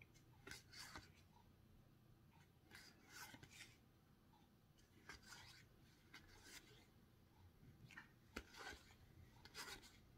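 Faint swishes of card-game cards sliding against each other, one card at a time, as they are passed from one hand's stack to the other, often two or three in quick succession.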